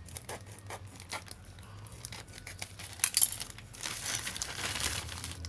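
Scissors snipping through a plastic courier mailer, a run of short clicks, then the plastic pouch crinkling and rustling as it is pulled open and handled, with a few sharp louder clicks about three seconds in.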